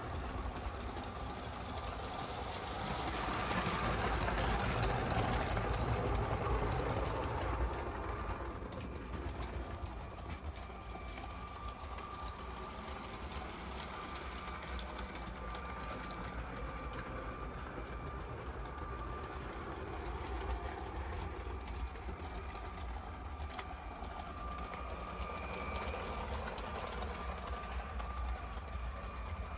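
LEGO City passenger train (set 60337) running on plastic LEGO track: the steady whine of its battery-powered Powered Up motor with the rattle of its wheels on the track, growing louder about three seconds in and easing off about eight seconds in.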